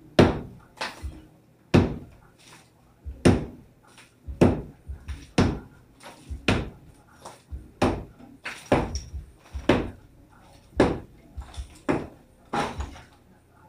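Sledgehammer blows against a masonry wall, about one heavy strike a second, with smaller knocks of broken pieces falling in between as the wall is knocked down.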